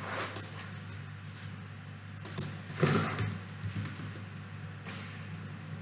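Steady low hum with a few short clicks and rustles: a quick pair near the start, another pair a little after two seconds, and a slightly louder rustle about three seconds in.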